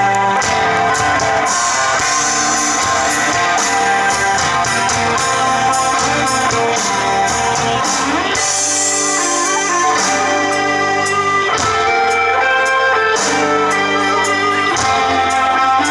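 Live rock band playing, with electric guitars to the fore over drums and bass.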